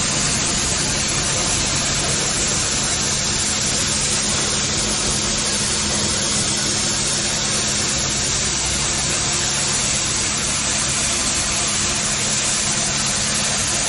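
High-pressure washer running at around 380 bar: a steady hiss of the water jet over the constant drone of the pump's motor.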